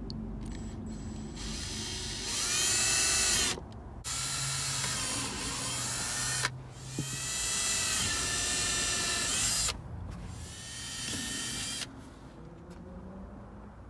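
Cordless drill running in four bursts of a few seconds each, its motor whine rising in pitch as it spins up at the start of each run.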